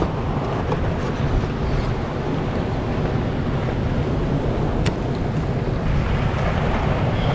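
Wind buffeting the microphone over the steady wash of surf breaking on a pebble shore, with one sharp click about five seconds in.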